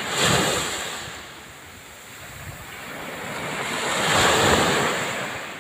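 Small waves washing up onto a sandy beach, the surf swelling twice: just after the start and again about four seconds in.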